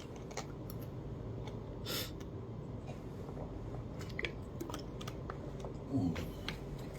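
Low steady room hum with a few faint small clicks and a brief soft rustle about two seconds in.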